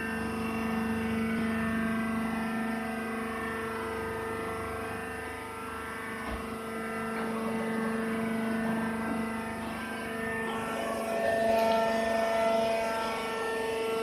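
Hydraulic sawdust baler's power unit running: a steady motor and pump drone with a strong even hum. It grows slightly louder, with added higher tones, past ten seconds in.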